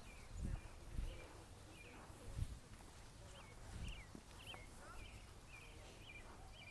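Faint, short high chirps repeating about every half second, with a few soft low thuds in between.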